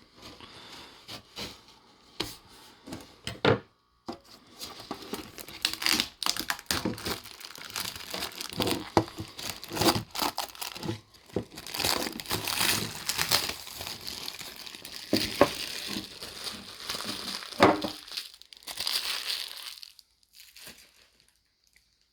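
Stiff plastic packaging crinkling and tearing as it is cut and pulled open, after a few separate clicks. The crackling stops near the end.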